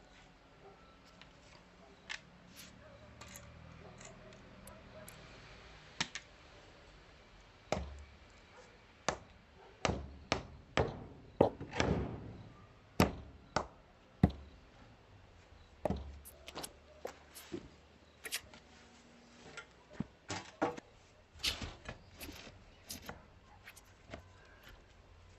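Hand tool work on stone and concrete: a run of irregular sharp knocks and thuds, sometimes two or three a second, starting about six seconds in and thinning out near the end.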